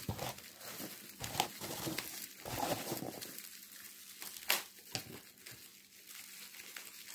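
Plastic packaging and bubble wrap crinkling and rustling as a wrapped item is unwrapped by hand, with scattered sharp crackles, the sharpest about four and a half seconds in.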